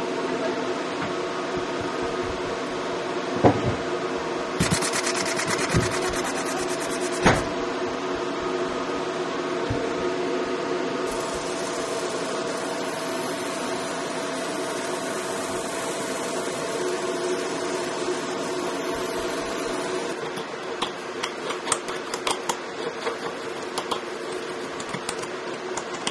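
Laser engraving machine running with a steady hum, with stretches of fine high hiss while the laser engraves a dog-tag outline into a metal sheet, and a couple of sharp knocks. About 20 seconds in the hum gives way to short, irregular scraping strokes of a hand file on a small metal tag.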